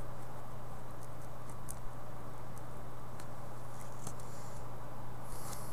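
Faint scratches and ticks of a pen writing on spiral-notebook paper, over a steady low hum.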